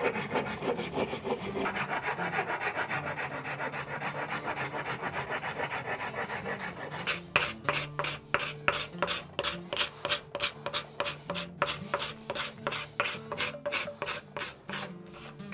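Hand rasp scraping the end of a hickory axe handle as the eye end is worked down to fit the axe head. The strokes are quick and even for the first several seconds, then from about seven seconds in they turn slower and more separate, about three a second.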